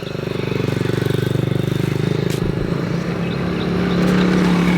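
Small motorbike engine running close by, growing louder over the first second and then holding steady.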